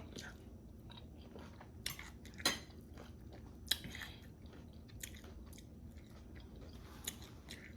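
Close-up chewing and biting of crispy fried chicken wings, with a few irregular sharp crunches between quieter chewing.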